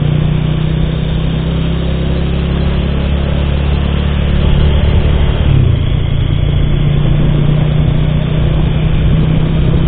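Bajaj Pulsar motorcycle engine running while riding at road speed, with wind rushing over the helmet-mounted microphone. The engine note changes pitch about five and a half seconds in.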